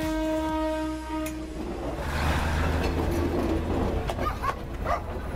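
Diesel train horn sounding one steady note that cuts off about a second and a half in, followed by the low, steady rumble of the train rolling past.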